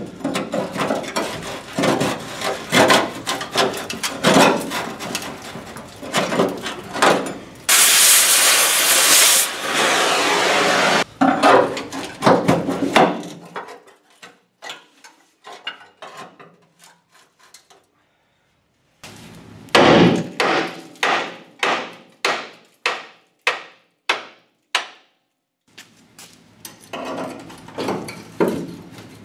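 Hammer blows on rusted steel channel iron of a dump truck box, knocking out rust: irregular strikes, then a loud steady hiss for about three seconds. Later comes a run of about ten strikes at roughly two a second.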